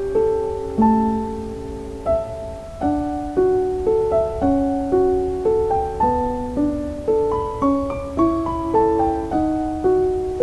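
Background music: solo piano playing a slow, gentle melody of single notes, each struck and left to fade.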